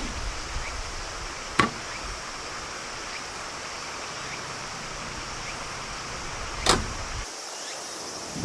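Knocks and clunks from the rear storage fittings of a Toyota HiAce camper van as gear is stowed: a sharp knock about a second and a half in and a heavier thud near the end. A steady high insect sound runs underneath.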